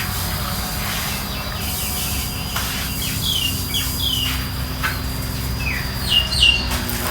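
Birds chirping: short, falling chirps scattered through, the loudest two close together near the end, over a steady low outdoor rumble.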